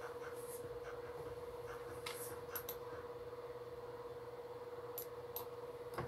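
Quiet room tone with a steady faint hum, broken by a few soft clicks and rustles about two seconds in and again near the end.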